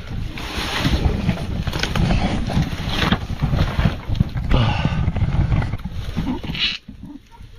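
Handheld fire extinguisher discharging with a rough, steady rushing hiss, cutting off sharply near the end as it empties.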